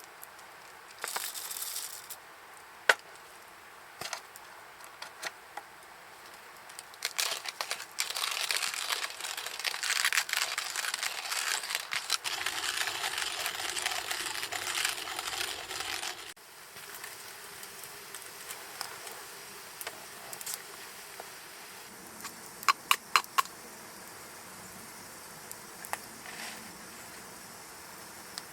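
Crinkling and rustling of handled material, with scattered clicks and a quick run of light metallic clinks near the end.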